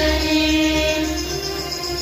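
Devotional hymn sung with musical accompaniment: long held sung notes over a deep bass.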